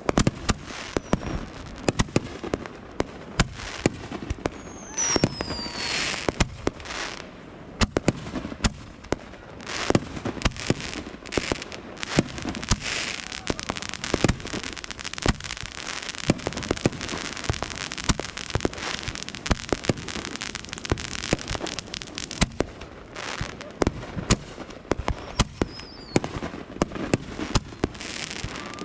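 Fireworks going off in rapid, irregular succession: many sharp bangs and pops with crackling between them. A couple of short falling whistles cut through, one about five seconds in and another near the end.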